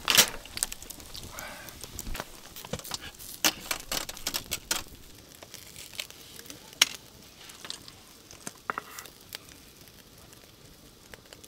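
Wood campfire crackling under oysters grilling in their shells, with scattered sharp clicks and taps of the shells and metal chopsticks. The clicks come thick in the first few seconds and thin out after that.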